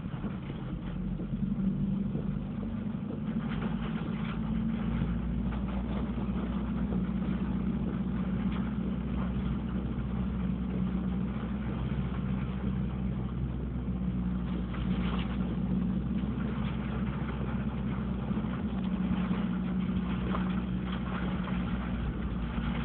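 An engine running steadily at idle, a constant low hum with a hiss of noise above it.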